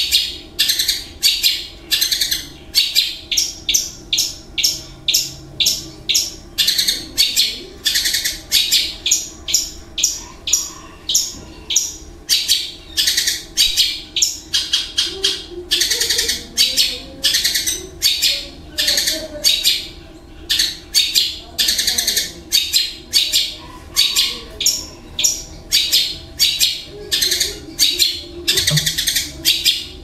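Caged long-tailed shrike (cendet) calling a long, unbroken run of short, harsh, scratchy notes, about two or three a second. This is the mimicked repertoire that shrike keepers call isian.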